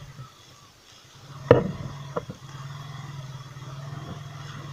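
Motorcycle engine idling steadily, with a sharp knock about a second and a half in and a smaller one shortly after.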